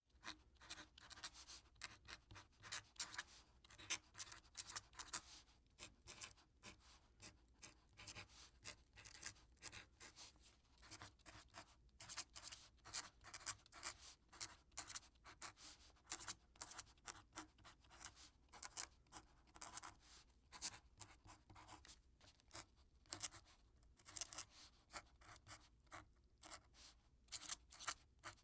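Quill pen scratching across paper in quick, irregular strokes with short pauses between words.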